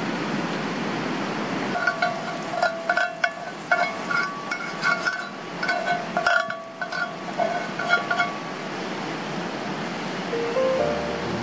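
Steady rush of a stream, with a quick run of light clinks and taps, each with a short ringing tone, from about two to eight seconds in as utensils work on cookware.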